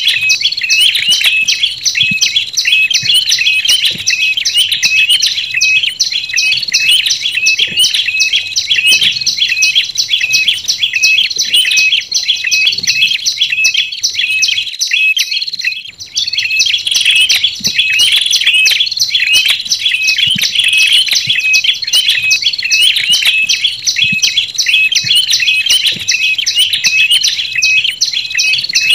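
Bird lure recording of prenjak lumut combined with red-headed prenjak calls: sharp, rapidly repeated chirps, several a second, with a brief pause about halfway through.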